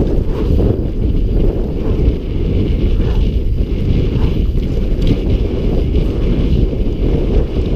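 Wind buffeting the microphone of a helmet-mounted camera during a fast mountain-bike descent on a Specialized Enduro, a loud steady rumble with tyre and frame rattle from the dirt trail mixed in.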